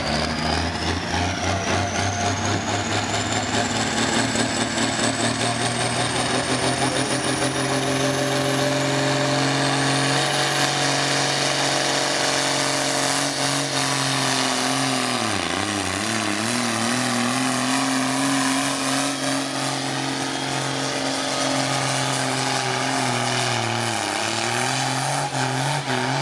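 Pulling truck's engine at full throttle, dragging a weight sled, with a turbo whistle that climbs steadily in pitch through the first half. The engine note sags twice, at mid-run and near the end, as the load bogs it down, then recovers.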